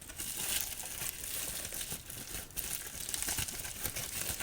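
Plastic packaging around playing card decks crinkling as it is handled: a dense run of fine crackles with a brief lull about two and a half seconds in.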